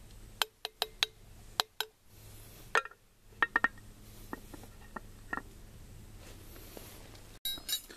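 A metal spoon clinking against the aluminium wz. 23/31 mess-kit pot as buckwheat is stirred, then the lid knocking as it is set on top of the pot. The sharp clinks come thick in the first four seconds and grow fainter and sparser after that.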